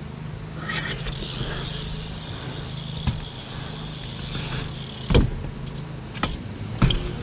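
BMX bike riding across a ramp: tyres rolling, then sharp knocks as it hits the quarter pipe and comes back, the loudest about five seconds in and another near the end. A steady engine drone runs underneath.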